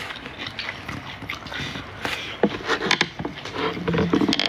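Close-up eating sounds: chewing, with many small, sharp wet clicks of mouth and fingers as rice and vegetables are eaten by hand. A brief low hum near the end.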